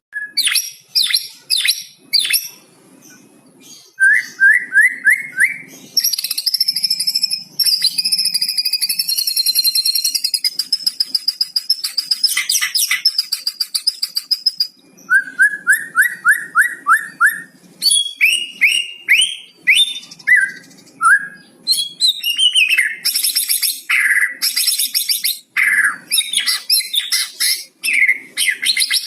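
White-rumped shama singing a long, varied song that includes imitations of the cucak cungkok: fast high trills, runs of short repeated whistled notes, and one long high trill lasting several seconds in the middle. A faint low hum runs under the song.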